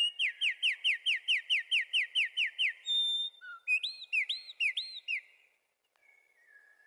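Wren singing: a fast run of about a dozen down-slurred notes, then a few varied notes and three arching notes, the song stopping about five seconds in. Faint softer calls follow.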